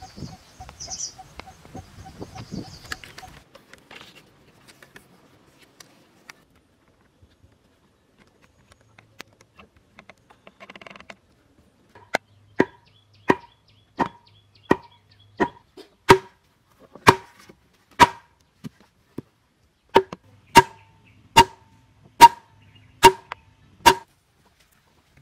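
Starts quiet, then about halfway in a steady run of sharp knocks of a tool striking wood begins, roughly one and a half a second, each with a short ring.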